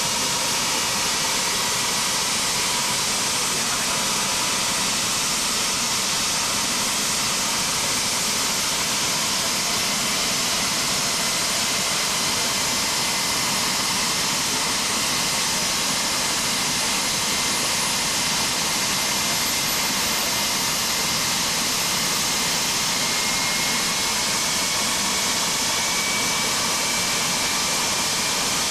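Rescue helicopter's turbine engines and rotor running on the ground ahead of take-off: a steady, loud rush with a faint high whine that rises slightly in pitch about two-thirds of the way in.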